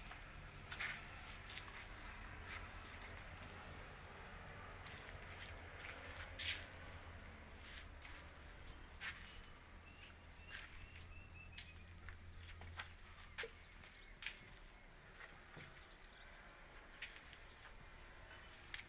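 Insects droning steadily on one high tone, with scattered sharp knocks every few seconds.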